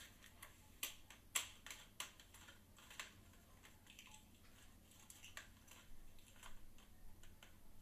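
Faint, scattered light clicks and taps from handling a small battery-powered plastic device and its battery, a few sharper ones in the first three seconds.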